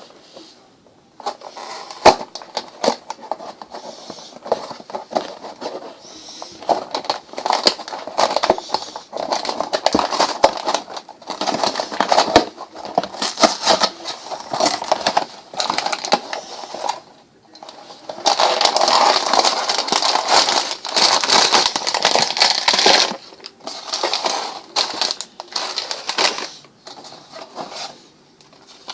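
Packaging of a Lego set being handled: irregular crinkling and crackling with scattered clicks, in uneven bursts with short pauses between.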